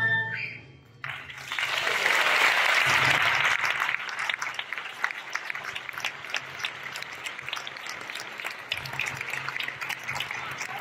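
The orchestra's last chord dies away, then an audience breaks into applause about a second in. The clapping is loudest for the next couple of seconds and then carries on more softly, with scattered individual claps.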